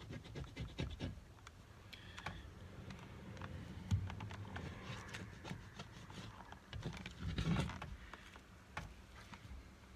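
Razor blade scraping blowtorch-heated window tint off the inside of a car's rear glass, with the tint peeling away: a run of faint scratches and small irregular clicks, a little louder about four seconds in and again near the end.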